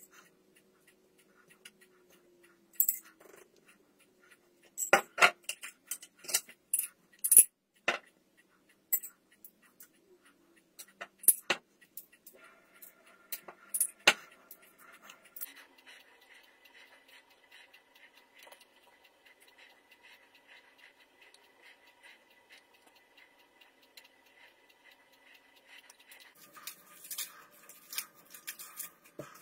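A metal spoon clinks and scrapes against glass jars and a ceramic plate, in sharp scattered taps, while mayonnaise and mustard are scooped out and dabbed onto bun halves. Near the end come quicker crinkling and rustling sounds as lettuce leaves are handled.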